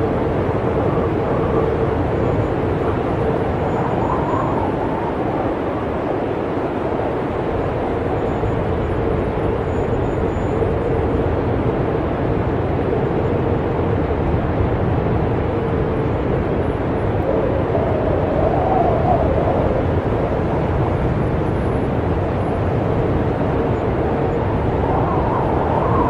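Blizzard wind blowing in a steady rush with a faint low whistling note, swelling into a higher wavering howl three times.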